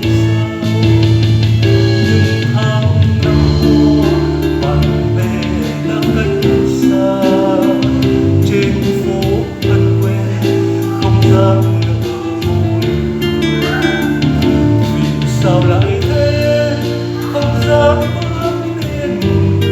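Song music: a ballad arrangement with guitar and a steady bass under a melodic lead line.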